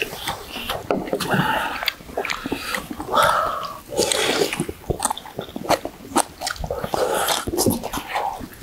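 Two people slurping soup and chewing with their mouths, in several short slurps. Metal spoons and chopsticks click repeatedly against stainless steel bowls.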